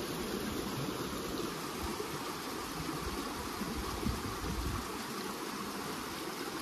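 Small stream's water flowing with a steady rushing sound.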